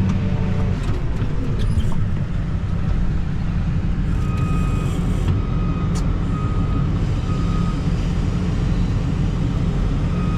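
New Holland CX5090 combine harvester running steadily while it unloads shelled corn from its grain tank into a trailer. A short electronic beep repeats several times from about four seconds in.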